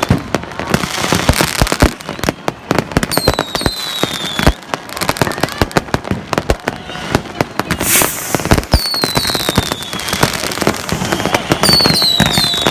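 A fireworks display: a dense run of bangs and crackling shell bursts, with short falling whistles several times.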